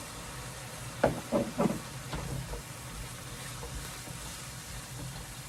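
Steady hiss of food sizzling in a pan, with a few short voice-like sounds about a second in.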